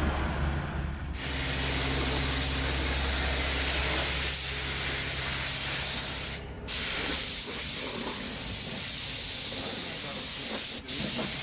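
Compressed-air paint spray gun hissing in long passes as a coat of paint goes onto the car's bonnet. The trigger is released briefly twice, a little past halfway and near the end. A steady low hum runs underneath.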